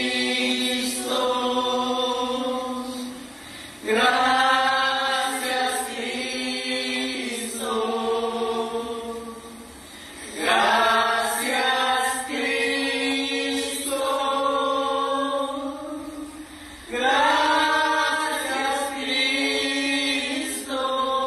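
Worship hymn sung by voices in long, held phrases, new phrases coming in about four, ten and seventeen seconds in.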